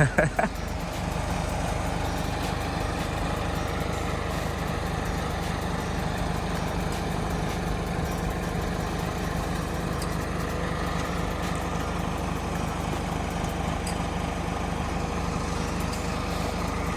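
An engine running steadily at a constant speed, without revving.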